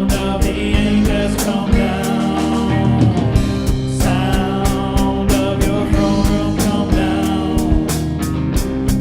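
Worship band playing an instrumental passage with a steady drum beat under held chords and a melodic lead line.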